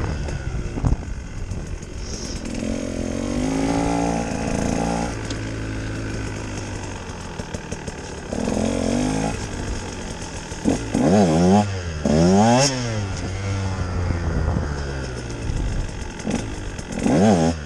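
2018 Husqvarna TE 150's two-stroke single-cylinder engine running under a rider, its pitch rising and falling as the throttle is worked. It gives quick, sharp revs about eleven to thirteen seconds in and again near the end.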